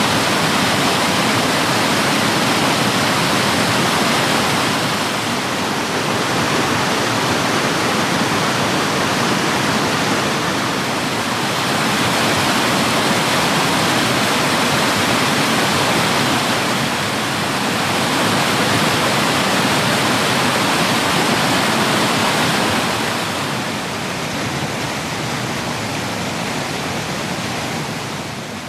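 River rapids rushing: a loud, steady wash of water noise that eases slightly near the end.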